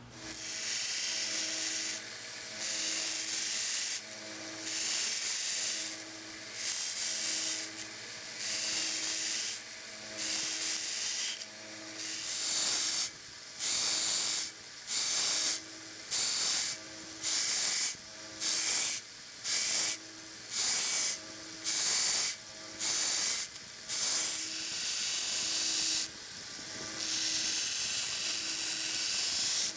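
Steel screwdriver shank being ground on a 1x30 belt sander with a coarse 40-grit belt, throwing sparks: a harsh hiss with each pass of the steel against the belt, over the sander's motor running steadily. The passes are short and repeated, coming quicker in the middle, then turn into one long continuous grind near the end.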